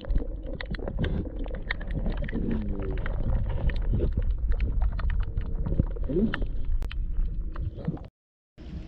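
Low rumbling handling noise with many small clicks and knocks, from groping among rocks in shallow seawater after a small crab. The sound drops out briefly near the end.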